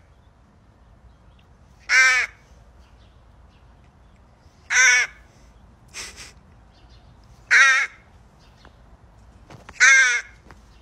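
A crow cawing: four loud, short caws spaced about two and a half to three seconds apart.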